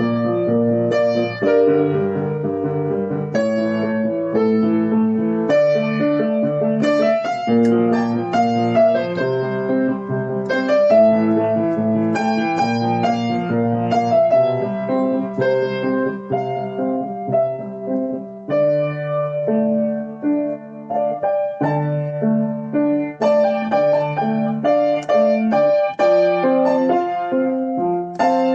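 Background piano music: a piano playing a melody over chords at a steady pace.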